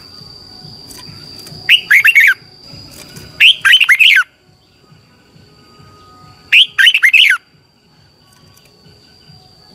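Red-whiskered bulbul singing three short, loud song phrases, each a quick run of clear notes sliding downward.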